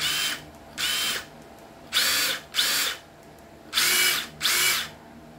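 Hitachi 14.4 V brushless cordless impact driver spun up in six short trigger pulls, each a brief whine that rises in pitch as the motor speeds up, then stops.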